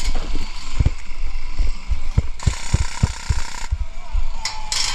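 Running footsteps on grass, heard as deep irregular thuds through a body-worn camera and coming closer together in the middle, with a hiss of about a second a little over halfway in.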